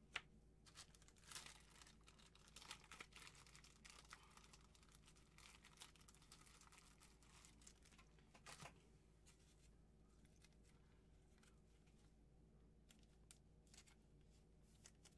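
Faint crinkling and rustling of trading cards and their wrappers being handled, with scattered light clicks, busiest in the first half and quieter later.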